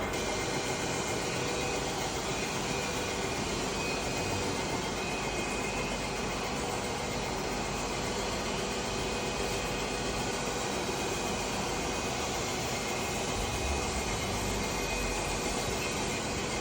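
A machine running steadily, an even mechanical noise with a faint constant whine.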